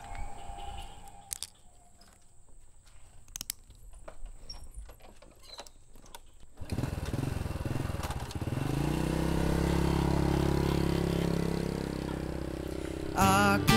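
Small motorcycle engine that starts abruptly after a few seconds of faint clicks, rises in pitch as the bike pulls away, then runs steadily. Acoustic guitar music comes in near the end.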